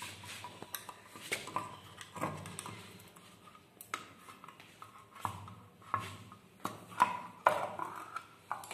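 Screwdriver prying at the lid of a small metal paint tin: irregular metal clicks, scrapes and clinks, with two sharper clinks near the end.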